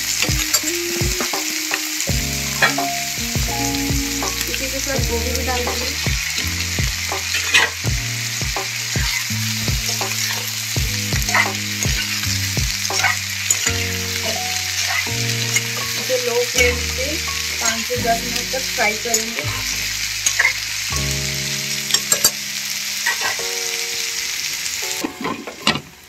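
Potatoes and onions sizzling in mustard oil in a non-stick kadai, with a metal spatula scraping and clicking against the pan as they are stirred. Near the end a glass lid goes on and the sizzle drops away to a muffled hiss.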